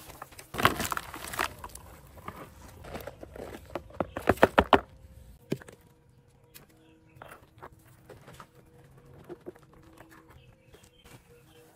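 Hands working dry cement powder in a metal pail and plastic basin. A burst of rustling and pouring comes near the start and a quick run of sharp knocks about four seconds in, then only faint scraping and taps.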